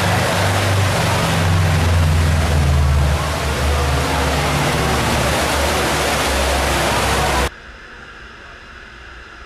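Loud rushing noise with a steady low engine drone, like a car driving at speed with wind on the microphone; the drone shifts a little in pitch and the whole sound cuts off suddenly about seven and a half seconds in.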